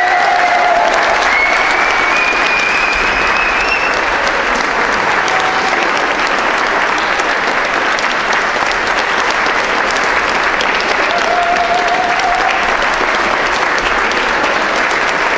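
Audience applauding: a long, steady round of clapping.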